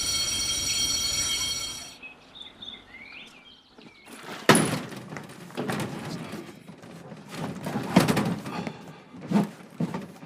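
A steady droning tone cuts off about two seconds in. Then come several loud, heavy thuds: the loudest about four and a half and eight seconds in, and smaller ones near the end.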